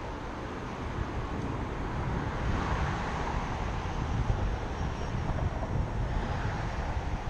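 Wind buffeting a small action-camera microphone, a steady low rumble. Over it runs a broad rushing noise that swells about two and a half seconds in.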